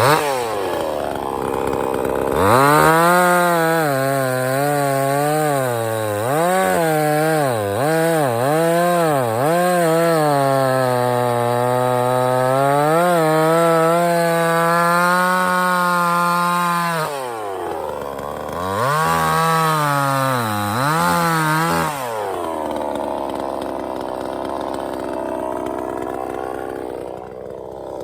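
Sungel 58 cc two-stroke gas chainsaw cutting wood at high revs, its engine pitch repeatedly sagging and recovering under load. It eases off twice, briefly about two-thirds of the way in and for longer near the end, running at a lower pitch.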